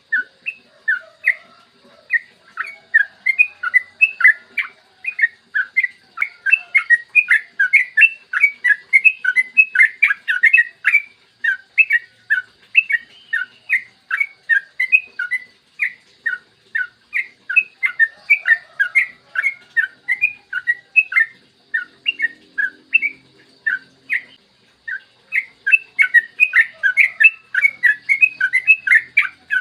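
Sooty-headed bulbul (trucukan) singing a long, fast run of short clear notes, about four a second, with a brief thinner patch about three-quarters of the way through.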